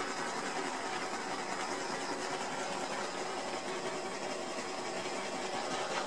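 Small handheld butane torch running with a steady hiss as it is swept over freshly poured clear resin to burst the air bubbles on its surface.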